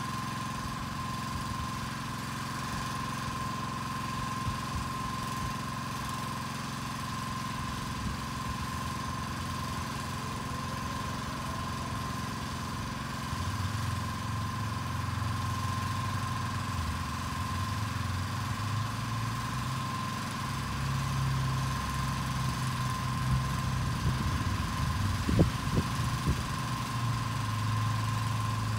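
An engine running steadily, with a steady high whine over it; the engine gets louder about halfway through, and a few sharp knocks sound near the end.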